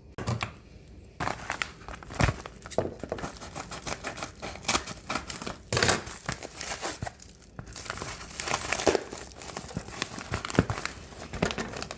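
Packaging being torn open and crinkled by hand, irregular rustling and ripping with sharp crackles, as a Lego package is unwrapped.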